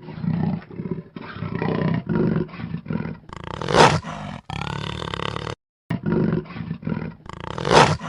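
Leopard's rasping call: a string of hoarse, grunting pulses, with two louder roars about four seconds apart.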